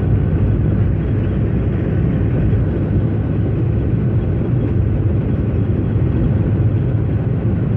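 Airliner's engines running at takeoff power, heard from inside the cabin as a steady, loud, low noise.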